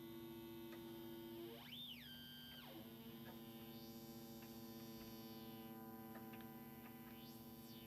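Behringer ARP 2600 synthesizer sounding a faint, steady sawtooth drone through its resonant filter. About two seconds in, a tone sweeps up high and back down. The player puts this kind of slow drift down to unintended modulation from the LFO.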